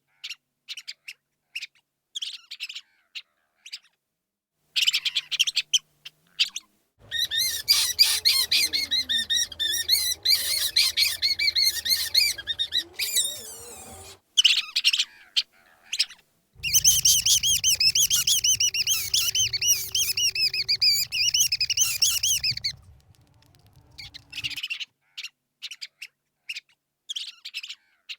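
Rat squeaking: short, high-pitched squeaks at intervals, with two long stretches of rapid, wavering squeaking in the middle.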